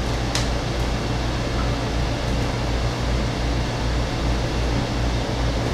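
A fan running steadily: a low hum under an even, airy hiss, with a soft tap about half a second in.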